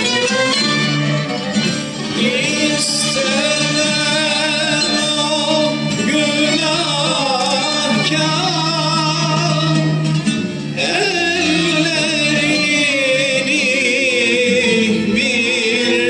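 A male soloist sings a Turkish classical song in makam Hicaz, holding long notes with a strong wavering vibrato and melodic turns. A Turkish classical ensemble of violins, ud and kanun plays along.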